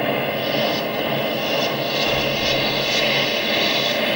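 Live electronic soundscape played from a laptop: a dense, steady drone of hiss and held tones that sounds like jet aircraft engine noise, with soft swells of high hiss about once a second.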